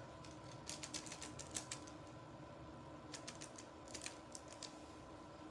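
Faint light clicks and taps in three short irregular clusters, over a low steady hum.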